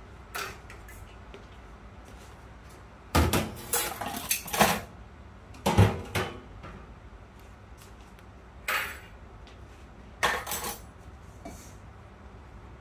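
Dishes and metal utensils clattering: irregular clinks and knocks, in clusters about three seconds in, around six seconds, and again near nine and ten seconds.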